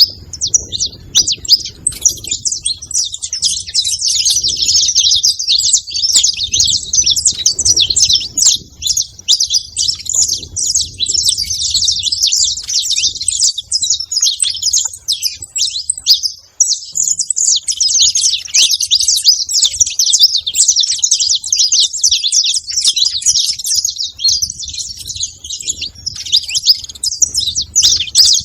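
Saffron finch singing: a long, continuous run of rapid high chirps and trills, broken only briefly about halfway through.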